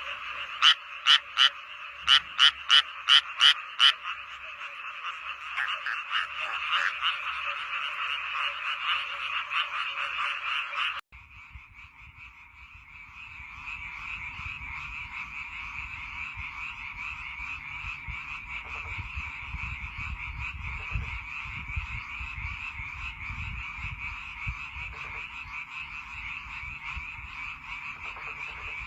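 Frog chorus: many frogs calling over each other, with one nearby frog giving a run of about eight loud, sharp calls in the first few seconds. About eleven seconds in, the sound cuts abruptly to another frog chorus recording with a low rumble beneath it.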